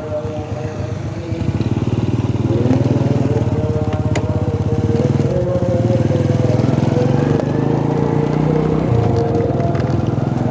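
Small motorcycle engine running steadily while riding, louder from about a second and a half in.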